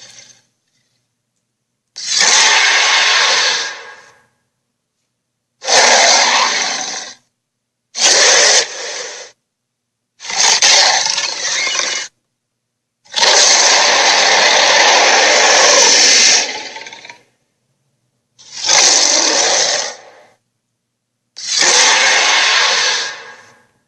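Sharptooth tyrannosaur roar and growl sound effects played one after another: seven harsh roars, each one to three seconds long with a clean gap of silence between them, the longest roar in the middle.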